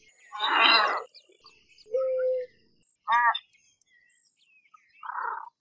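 American white ibis calling: four short, separate calls spaced a second or two apart. The first, about half a second in, is the loudest, and one near the middle is a steady, lower note.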